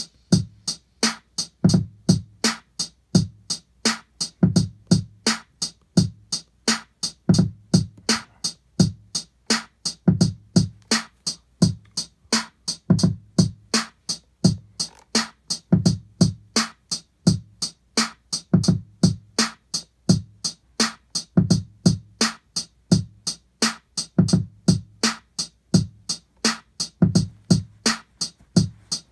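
A programmed drum pattern looping on an Akai MPC Live sampler: dry kick thumps under steady ticking high hits, about four a second.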